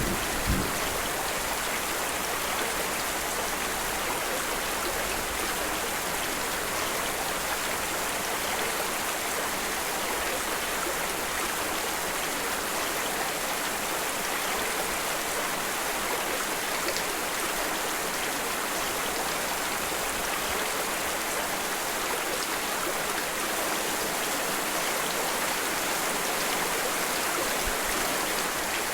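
Steady rain mixed with flowing water, an even, unbroken hiss. The low tail of a thunder rumble dies away in the first half-second.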